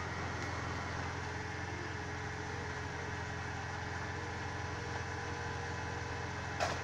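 Truck engine idling steadily, with a sharp click near the end.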